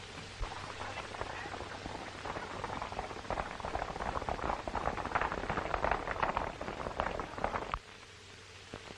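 Hoofbeats of a group of horses galloping, a dense clatter that grows louder and then cuts off abruptly near the end, over the steady hiss of an old film soundtrack.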